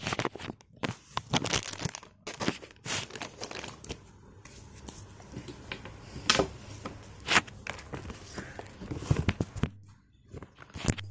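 Rustling and scraping from a phone being handled and swung about close to its microphone, with irregular crackles and a few sharper scrapes about six and seven seconds in.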